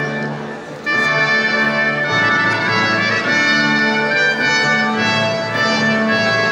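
Orchestral music led by brass, with trumpet to the fore, playing held chords that change every second or so; it gets louder about a second in.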